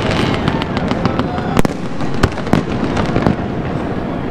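Fireworks display going off: a continuous crackle and hiss with many sharp bangs scattered through it, the loudest about a second and a half in and twice more around two and a half seconds in.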